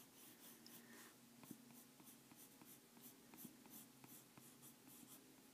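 Colored pencil scratching faintly on coloring-book paper in many short, quick shading strokes, pressed down and lifted in turn.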